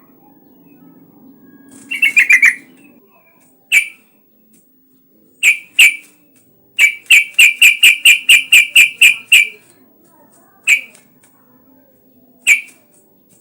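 Yellow-vented bulbul calling in short, bubbly notes: a quick run about two seconds in, scattered single notes, and a longer run of about a dozen fast notes in the middle.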